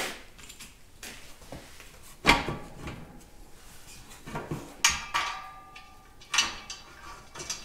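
Metal clanks and clinks as steel parts and bolts are handled against the sheet-steel tractor grille shell: a few sharp knocks, one near the middle leaving a ringing metallic tone for about a second.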